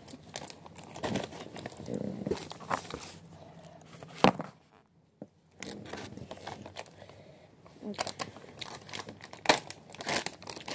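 Chip bag crinkling and rustling as it is handled, with irregular sharp crackles. It falls quiet for about a second around the middle, and two crackles, one just before that gap and one near the end, stand out as the loudest.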